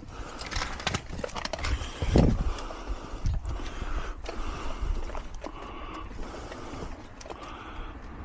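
Scattered mechanical clicks and knocks from work on a gate's metal hardware, with a stronger low thud about two seconds in, over a low rumble.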